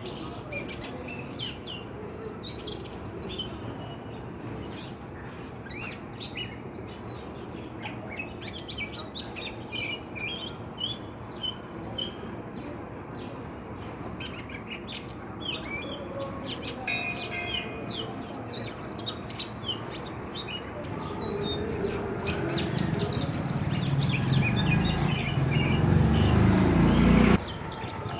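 Small birds chirping and tweeting, many short high chirps in quick succession. A low rumbling noise builds up in the second half, becomes the loudest sound, then cuts off suddenly near the end.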